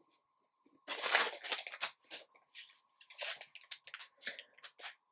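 Foil trading-card pack wrappers crinkling in the hands, a run of sharp crackles starting about a second in.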